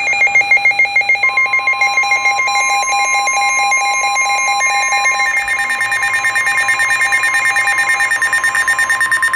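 Weather radio emergency alert tones: rapid electronic beeping that changes pitch about halfway, with a steady 1050 Hz NOAA Weather Radio attention tone coming in about a second in. These signal that a warning message is about to be read.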